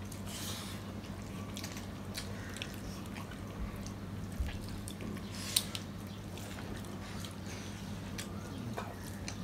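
Eating sounds of rice and curry eaten by hand: small wet mouth clicks and smacks, with light clicks of fingers on steel plates, scattered through, the sharpest about five and a half seconds in. A steady low hum runs underneath.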